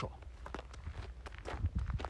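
Footsteps of a person walking, a series of light steps.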